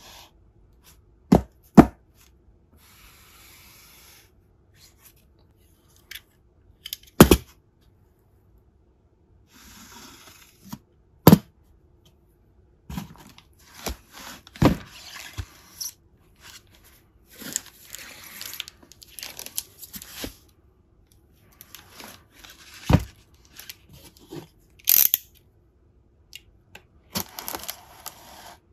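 A cardboard shipping box handled and turned over by gloved hands: several sharp knocks as it is set down on the table, with rustling and scraping of cardboard in between. Near the end, a utility knife slices through the packing tape along the box's seam.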